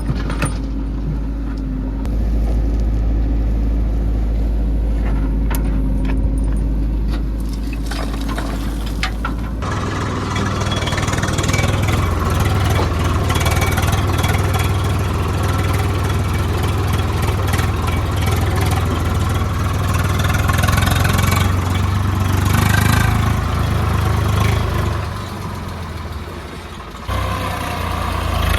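Heavy diesel engines of the earth-moving machinery running: a low steady rumble with scattered clicks, changing abruptly about ten seconds in to a louder, fuller engine sound that dips briefly near the end.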